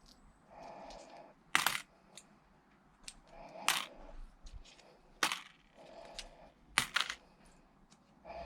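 Pennies clinking against a strong magnet and against each other: a series of sharp metallic clinks, strongest about one and a half seconds in and again near four, five and seven seconds, with softer jingling in between.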